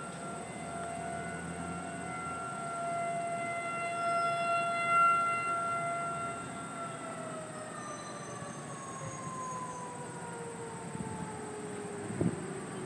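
Federal Signal 2001 outdoor warning siren sounding a single steady tone that swells and fades as it rotates. About halfway through it winds down, its pitch falling slowly and steadily, at the end of its test run. A short thump near the end.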